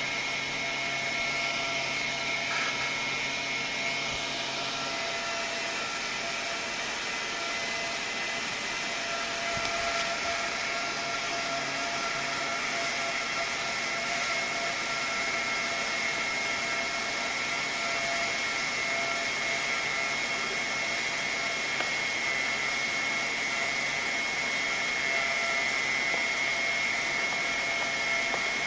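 Small electric fan running steadily: an even rushing whir with a steady high whine on top. A lower hum underneath stops about five seconds in.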